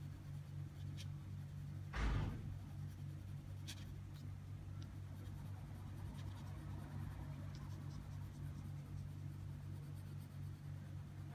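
A black coloured pencil scratching and rubbing on sketchbook paper in short shading strokes, over a steady low hum. A brief thump about two seconds in.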